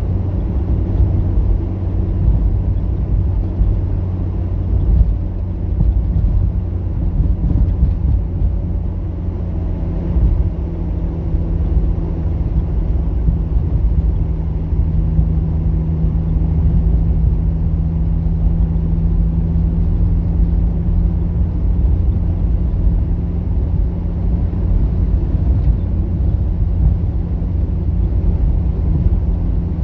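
A 4x4 on the move: a steady low rumble of engine and road noise. A steadier hum stands out for several seconds from about a third of the way in.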